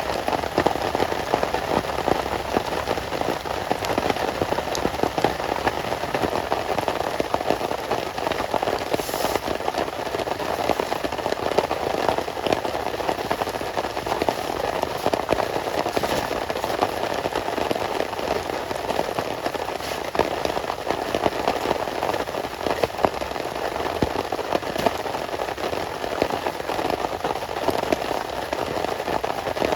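Heavy rain falling steadily: a dense, even patter of countless drops hitting a surface close by.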